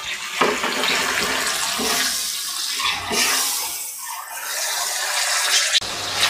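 Mutton keema and freshly added chopped tomatoes sizzling in a hot nonstick wok as a silicone spatula stirs and scrapes them. The hiss swells and fades with each stroke of the spatula.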